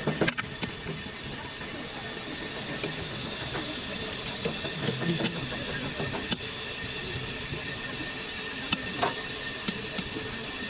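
Steady mechanical workshop hum with several sharp clicks or taps scattered through it, one of them about six seconds in.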